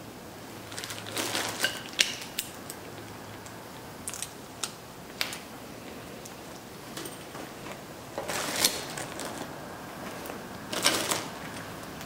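Metal brake parts and hand tools being handled: scattered sharp clicks and clinks, coming in a few short clusters of clatter.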